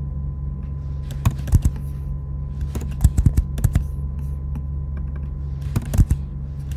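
Computer keyboard keys clicking in short clusters: a couple of keystrokes a little over a second in, a quick run of them around three seconds, and a few more near the end, over a steady low hum.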